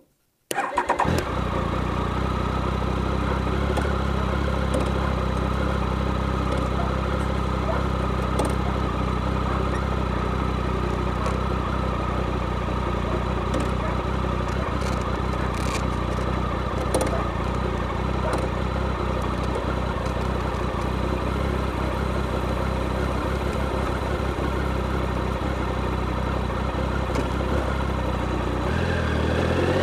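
Motorcycle engine starting about half a second in, then running steadily at low revs. Near the end the revs rise as the bike accelerates. The engine is picked up by a microphone mounted under the seat.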